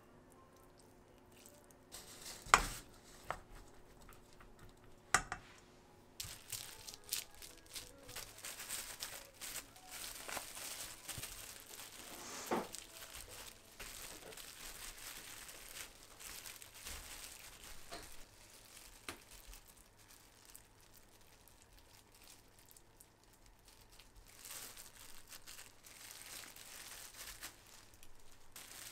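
Disposable plastic gloves crinkling and rustling as hands spread and press sushi rice over nori on a bamboo rolling mat. A few sharp knocks come in the first few seconds, the loudest about two and a half seconds in.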